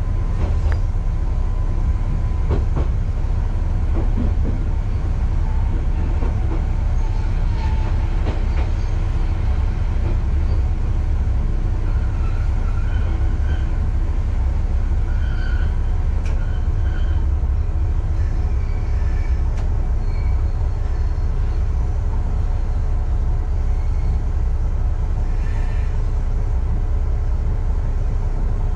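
Diesel railcar running slowly with a steady low engine rumble. A few sharp clicks come from the wheels on the track in the first few seconds, and faint brief wheel squeals follow midway.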